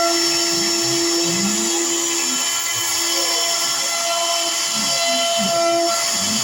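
CNC router spindle running with a steady high whine while milling out a cavity, with lower tones gliding up and down underneath.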